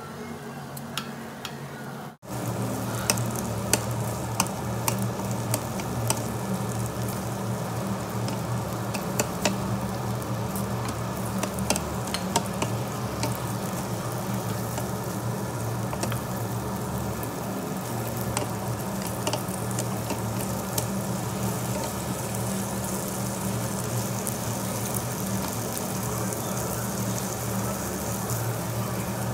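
Marinated duck meat sizzling on a hot tabletop barbecue grill, with frequent sharp crackles and pops over a steady low hum. The sound drops out for an instant about two seconds in, then comes back louder.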